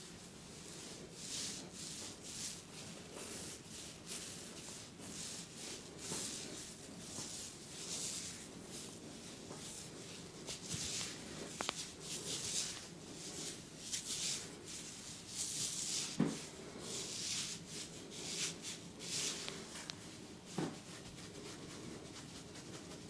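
Hands rubbing and stroking over hair and skin in a head massage: a string of short brushing swishes, about one or two a second, with a few sharp clicks in between, the loudest about two-thirds of the way through.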